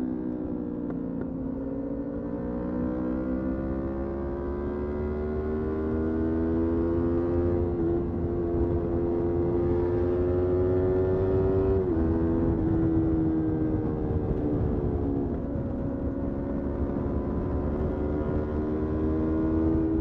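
Motorcycle engine under way, its note climbing slowly, dropping abruptly about twelve seconds in at an upshift, then climbing again. A steady low rumble of wind and road noise runs underneath.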